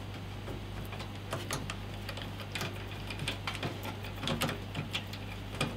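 Hand screwdriver driving the small mounting screws through the PC case's rear panel into a power supply, metal clicking and scraping. The clicks are irregular, start about a second in and come more often towards the end. The screws are being left a bit loose so the rest can still be lined up.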